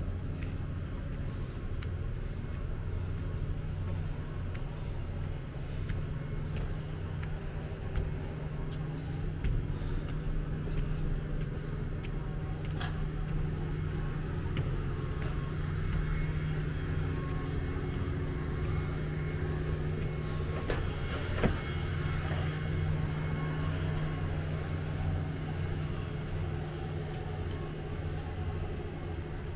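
A motor vehicle's engine running steadily, a low hum, with a few sharp clicks; the loudest click comes about 21 seconds in.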